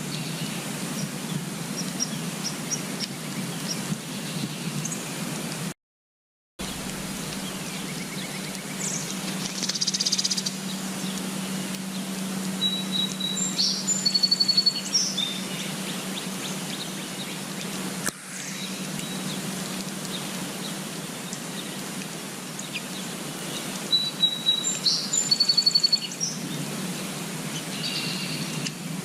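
Small birds calling in short chirps and trills, in a few separate phrases over a steady outdoor hiss. The sound drops out completely for under a second about six seconds in.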